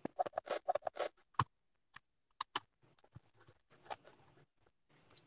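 Small clicks and taps of RC shock-shaft parts being handled and fitted together by hand: a quick run of them in the first second, then a few scattered single clicks.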